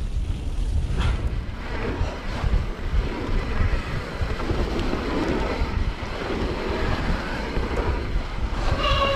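Mountain bike rolling along a dirt trail: wind buffeting the camera microphone over a steady rumble of tyres and bike rattle, with scattered clicks. A brief high ringing tone comes near the end.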